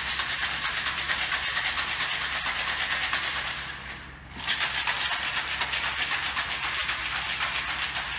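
Ice rattling inside a metal cocktail shaker shaken hard, a rapid continuous clatter in two bouts with a brief pause about four seconds in.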